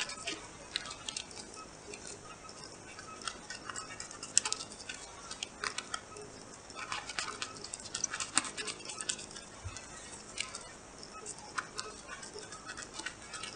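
Small scissors snipping through clear self-adhesive plastic film laminated over a paper sheet, trimming its edges: an irregular run of short, crisp snips, a few louder than the rest.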